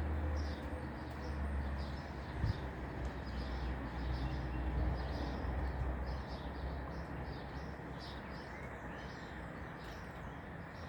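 Small birds chirping in short, repeated calls over a low rumble that eases off after about six seconds, with one brief click about two and a half seconds in.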